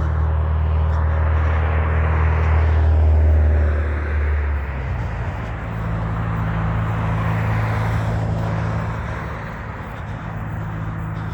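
Road traffic: vehicles passing, over a steady low engine drone from a heavy vehicle that changes tone about halfway through.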